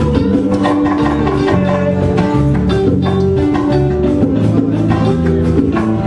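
Live Latin band playing: acoustic and electric guitars strummed and picked over bass and hand percussion in a steady Cuban rhythm.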